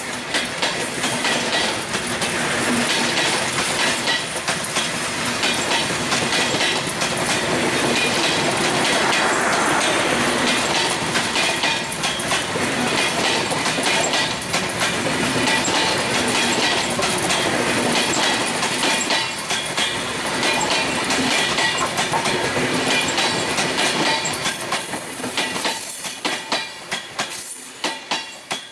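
Passenger coaches of an intercity train rolling past close by, their wheels clattering steadily over the rail joints. In the last few seconds the clatter thins to separate clacks and fades as the end of the train goes by.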